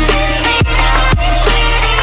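Electronic background music with a steady kick-drum beat, about two beats a second, under held synth notes.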